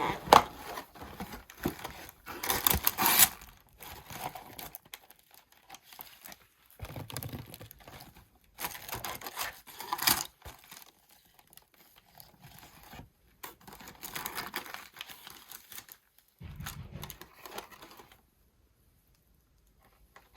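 Paper takeout packaging being crinkled and torn by hand in irregular bursts of rustling, with sharp clicks and a short low thump near the end.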